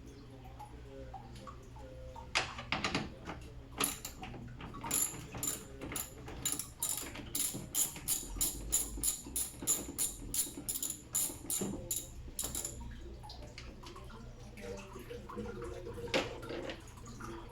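Ratchet wrench clicking in quick repeated strokes, about two or three a second, for roughly ten seconds, while fasteners are worked loose during a radiator replacement. A steady low hum runs underneath.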